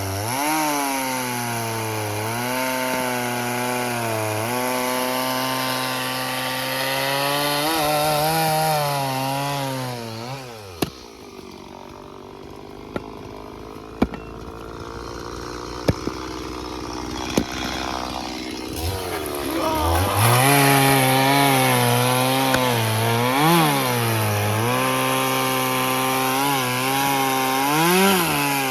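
STIHL MS 170 two-stroke chainsaw cutting firewood, its engine pitch sagging and recovering as the chain bites and frees. About ten seconds in it drops to idle, with a few sharp knocks. Near the end it revs up again and resumes cutting.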